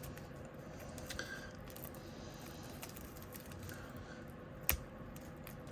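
Faint rustling of a cardboard tarot card box and its deck being handled and worked loose, with one short sharp click a little under five seconds in.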